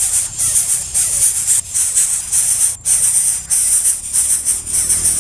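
Background music with a rhythmic shaker-like hiss pulsing two to three times a second over a low steady hum.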